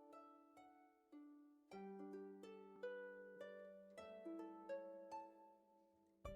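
Quiet background music of plucked notes, each ringing and fading, with a low bass note joining a little under two seconds in.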